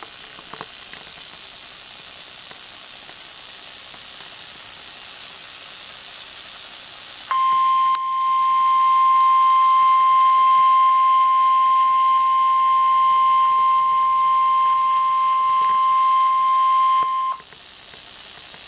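Emergency Alert System attention signal for a National Weather Service warning. After several seconds of radio hiss, a single steady high tone, the NWS 1050 Hz warning alarm tone, comes on about seven seconds in, holds for about ten seconds, then cuts off back to hiss. The tone announces that a severe weather warning message follows.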